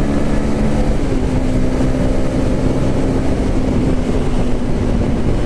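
Honda CB Twister's single-cylinder engine running at a steady pitch at highway cruising speed, about 110 km/h, over a dense rush of wind and road noise. The engine note shifts slightly about a second in.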